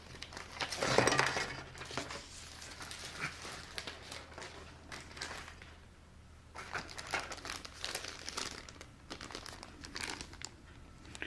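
Plastic bags holding model-kit parts crinkling and rustling as they are handled, loudest about a second in.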